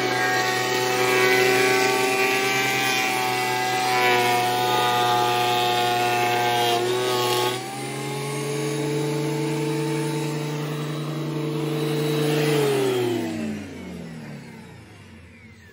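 Electric wood planer running with a board feeding through it, cutting loudly for about seven and a half seconds. As the board clears, the cutting noise stops and the free-running motor rises slightly in pitch. About twelve seconds in the planer is switched off and its motor winds down with a falling pitch.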